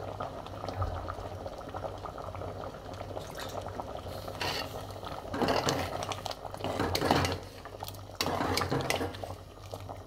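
Bamboo shoot soup boiling in a metal pot, bubbling steadily. From about four seconds in, a ladle stirs it in several louder bursts of sloshing and scraping.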